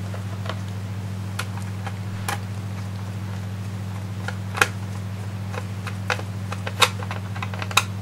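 Irregular light clicks and ticks of a screwdriver tightening the screws of a Dell Inspiron 1525 laptop's bottom panel, a few sharper clicks about halfway through and near the end, over a steady low hum.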